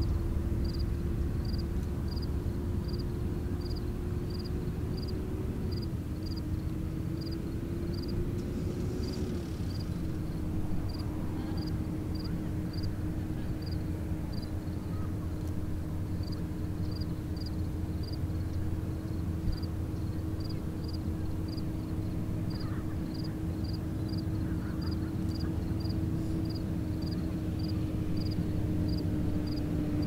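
Steady low rumble of jet aircraft engines from the nearby airport, with a steady droning hum that dips slightly in pitch twice in the first ten seconds. A faint high tick repeats about once or twice a second over it.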